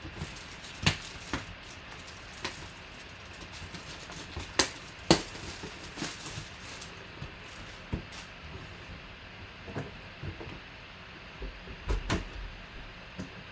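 A cardboard box and packaging being handled and opened by hand: scattered clicks and knocks over a low background, loudest about five seconds in and again near the end.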